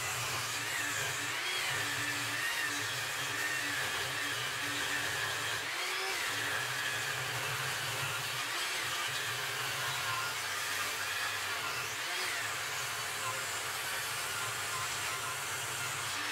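Cheap table saw ripping black locust boards lengthwise. The motor and blade give a steady whine that sags and wavers as the hardwood is fed through.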